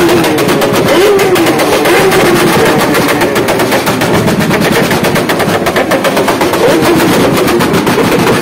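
Sport motorcycle engine revved hard and held at high revs through a loud aftermarket exhaust, its pitch wavering up and down, with a rapid machine-gun-like crackling rattle over it.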